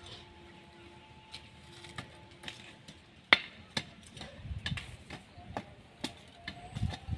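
Hands working loose soil around the base of a transplanted tree: scattered light clicks and crackles, the sharpest about three seconds in, and a few soft thumps in the second half.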